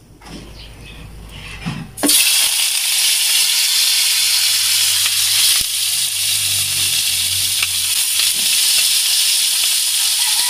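Cubes of pork fat dropped into a hot wok, sizzling from about two seconds in: the fat starting to render out its oil for frying.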